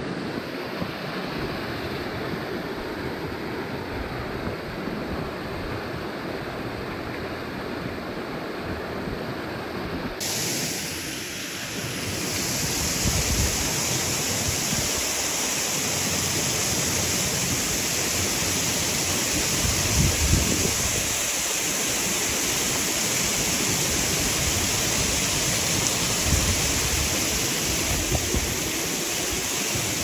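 Steady rush of creek water running, with occasional low buffeting of wind on the microphone. About ten seconds in, the rush gets louder and hissier.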